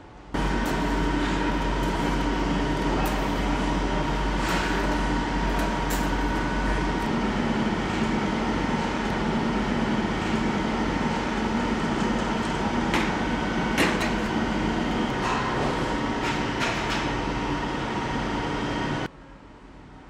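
Industrial bakery machinery running: a steady mechanical hum with a faint whine, broken by several sharp metallic clanks and rattles. It starts abruptly and cuts off abruptly near the end.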